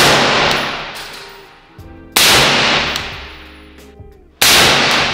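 Three rifle shots from an AR-style rifle, about two seconds apart, each ringing off the walls of a small indoor range as it dies away.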